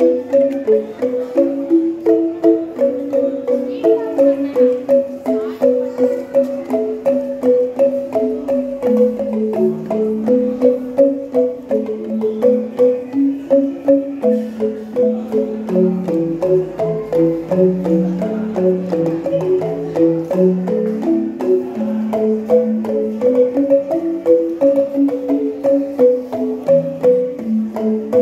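Angklung ensemble playing a rhythmic melody of quick repeated notes over a lower accompanying line.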